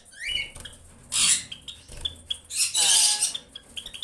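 Java sparrows calling at the nest: short rising chirps and sharp chip notes, with two louder bursts of noise about a second in and near three seconds.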